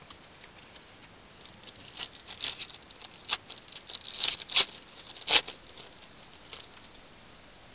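Paper-and-foil crinkling and rustling as a pack of Topps Chrome baseball cards is torn open and the cards handled, in irregular crackles with a few sharper snaps about four and a half and five and a half seconds in.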